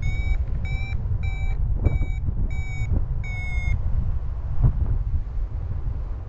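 Paragliding variometer beeping its climb tone: six short beeps at one steady pitch, a little over one a second, that stop about two-thirds of the way through, signalling lift. Under it, a steady low rush of wind on the microphone.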